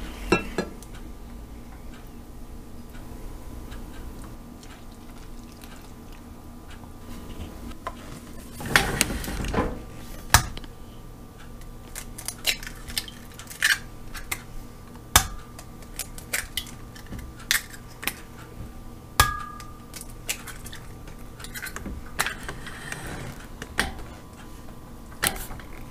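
Sharp separate clinks and taps of eggshells against a glass measuring cup as eggs are cracked into it, coming every second or so through the second half, over a faint steady hum. A brief rushing sound about nine seconds in.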